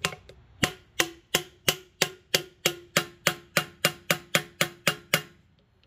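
Hammer striking a seal driver tool, driving a new wheel seal into a semi-truck wheel hub. About three blows a second, each with a short metallic ring, quickening toward the end and stopping about five seconds in.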